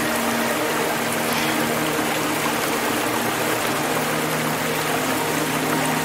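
Shallow rocky stream rushing over stones in small rapids: a steady, even water noise. Beneath it sit low, steady held tones of ambient music.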